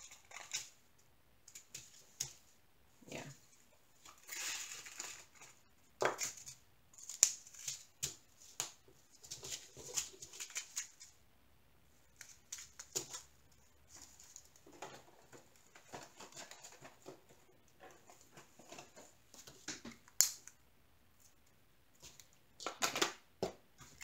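Small plastic zip bags being handled, opened and pressed shut, with tiny resin diamond painting drills shifting inside: irregular crinkles and rustles with a few sharp clicks.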